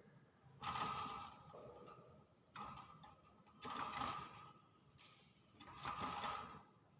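Pet hill myna making four short, husky, cough-like sounds, one to two seconds apart: its mimicked coughing and sneezing.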